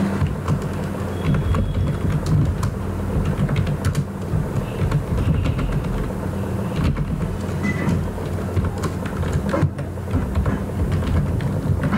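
Computer keyboard typing, keys clicking irregularly, over a steady low hum.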